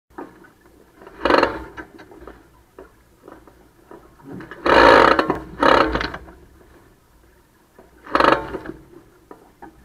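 Water splashing and slapping against the bow of a Merit 25 sailboat under way, in four short bursts, the loudest and longest about five seconds in.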